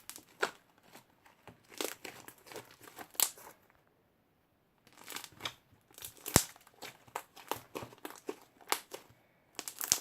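Hands squeezing and stretching glue-and-borax slime, giving irregular sticky clicks and crackles, with a pause of about a second near the middle.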